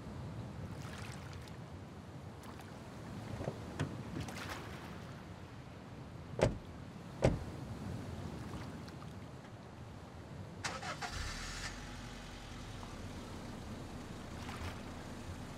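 Two car doors slam shut about a second apart. Then a car engine cranks briefly, catches and settles into a steady idle.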